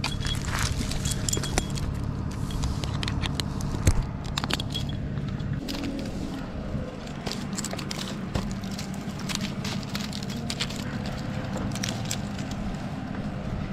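Climbing hardware on a tree climber's harness jangling and clicking, with scrapes of gloves and gear against rough pine bark, over the steady low hum of an engine running below, which the scene points to the 16-ton rough-terrain crane. The hum drops noticeably partway through.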